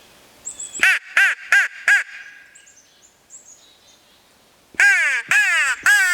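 Wild turkey calls: a series of four evenly spaced yelps about a second in, then a tom gobbling loudly in a long rattling burst near the end. Faint small-bird chirps sound in between.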